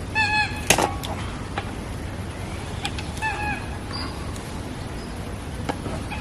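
A short, pitched animal call repeated about every three seconds, heard twice, each call dropping slightly in pitch at the end, with a few light clicks in between.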